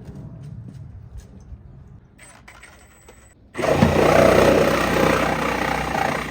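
A power tool starts about three and a half seconds in and runs loud and steady, cutting rusted floor-pan sheet metal out of a BMW E36. Before it starts there is only a quieter low rumble.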